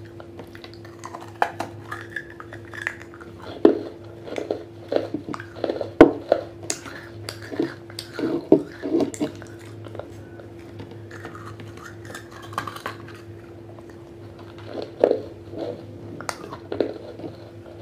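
Wet unglazed terracotta clay pot being bitten and chewed, with sharp crunches in two clusters: one starting about four seconds in and lasting several seconds, and another near the end.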